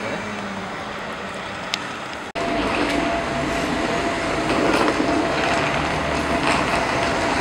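Busy city street noise of traffic and passers-by. It cuts about two seconds in to a louder stretch with a thin, steady high whine running under it.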